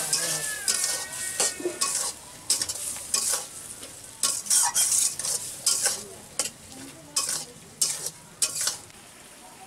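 Metal spatula stirring and scraping ridge gourd and potato around a steel wok in short, irregular strokes, several a second, over a steady frying sizzle, the vegetables just seasoned with turmeric. The strokes stop near the end.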